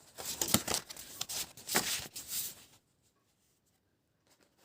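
Paper sheets rustling and crinkling as they are handled, a run of short scrapes that stops about two and a half seconds in.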